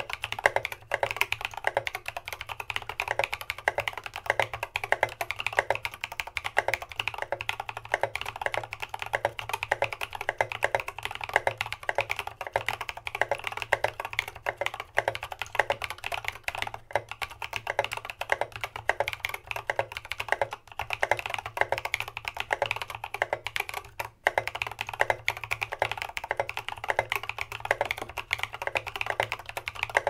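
Steady, fast typing on a CA66 custom mechanical keyboard with unlubed Holy Red Panda tactile switches and SA keycaps: a continuous run of key clacks.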